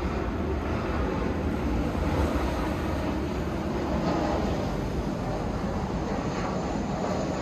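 Steady low rumble of a jet airliner's engines as it flies past overhead.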